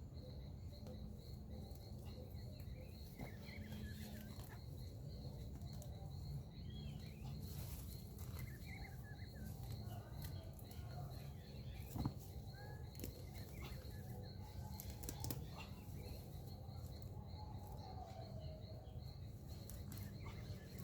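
Faint rural ambience: scattered bird chirps over a steady, pulsing insect trill and a low rumble. A single sharp knock comes about twelve seconds in.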